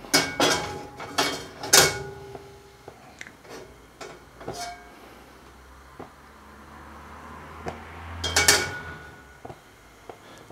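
Carbon steel wok clanking and scraping against the metal wok ring on a gas hob as it is tilted and swirled to spread heating oil, with a cluster of sharp ringing knocks in the first couple of seconds and another near the end.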